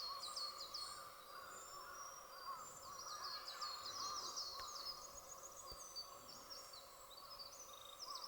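Male northern pika (Ezo pika) calling: short, high-pitched squeaks that drop in pitch, given in quick series again and again, over a steady background chirring.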